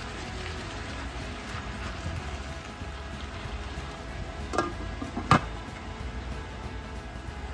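Two sharp knocks a little under a second apart, the second louder, over a steady low hum.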